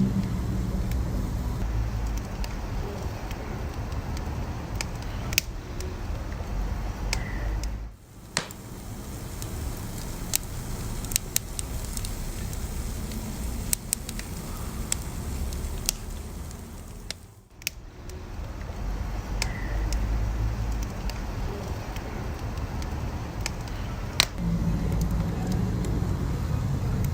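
Wood fire burning with a steady low rumble of flame and scattered sharp crackles and pops from the burning logs. The sound dips briefly twice.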